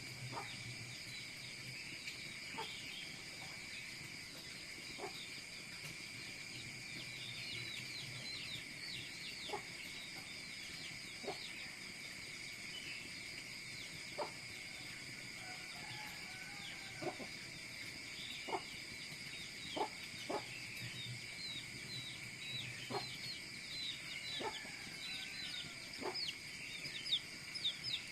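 Outdoor ambience: a steady high insect-like drone with many quick, high chirps and scattered sharp pops or clicks, which come more often in the second half.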